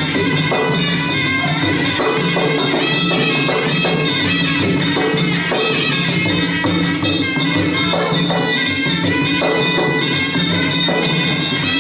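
Traditional Khmer boxing ring music playing steadily: a reedy sralai oboe melody over drums and small cymbals keeping a regular beat.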